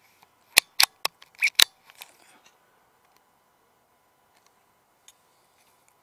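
Rifle bolt being worked by hand for a follow-up shot: a quick run of about six sharp metallic clicks over about a second and a half, then a few faint ticks.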